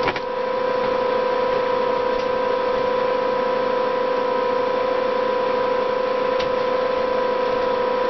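Steady electrical hum from a power inverter and a mini air conditioner's fan running on an off-grid solar system. One constant tone, with a fainter one above it, sits over an even whir.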